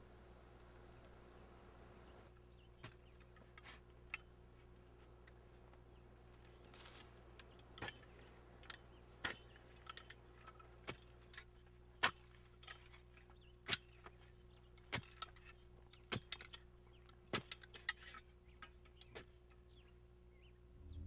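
A shovel digging into dry earth: irregular sharp chops and scrapes, about one or two a second, over a faint steady hum.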